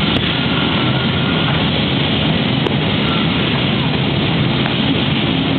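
Large floor drum fan running, a steady rushing roar that stays level throughout.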